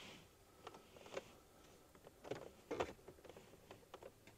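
Faint, scattered clicks and rustles of a wiring harness and plastic electrical connectors being handled.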